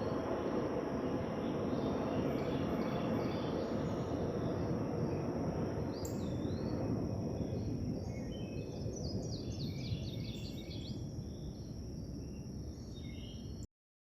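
Steady outdoor background noise that thins out about halfway through, with small birds chirping over it and a quick run of repeated notes about nine seconds in. It cuts off suddenly just before the end.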